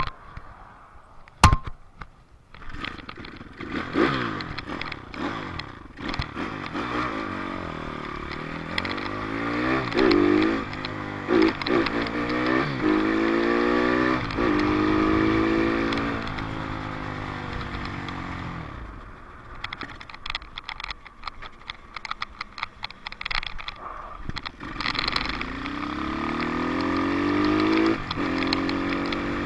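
Dirt bike engine accelerating hard, its pitch climbing and dropping again and again as it shifts up through the gears, then easing off before climbing once more near the end. A single sharp knock sounds about a second and a half in.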